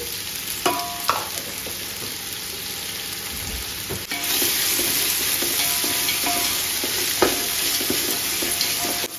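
Sliced onions frying in oil and ghee in an aluminium pot, a steady sizzle that gets louder about four seconds in. A wooden spatula scrapes and knocks against the pot a few times as the onions are stirred.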